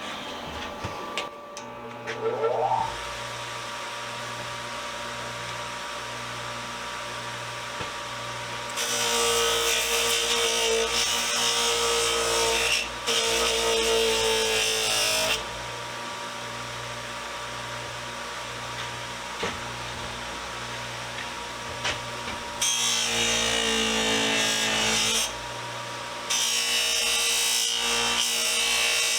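Bench buffer starting up with a brief rising whine, then running with a steady hum. Three times a pipe wrench is pressed against the spinning buffing wheel with compound, adding a loud, harsh rubbing noise: for about six seconds from a third of the way in, then twice more near the end.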